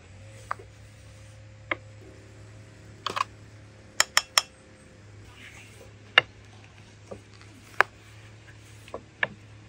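Irregular sharp clinks and knocks of cooking utensils, some in quick runs of two or three, over a faint low steady hum. First a metal spoon in an aluminium pot of currant jam, then a wooden rolling pin on a wooden board as dough is rolled out.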